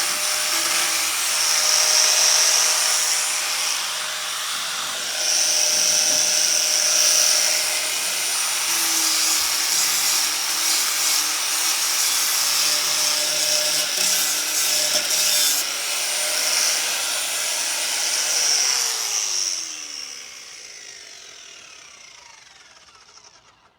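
4½-inch angle grinder fitted with a 50-grit sanding disc, sanding a wooden tabletop: a steady high whine over a rough rasp that swells and eases as the disc is pressed and lifted. About 19 seconds in it is switched off and winds down, its pitch falling away to silence.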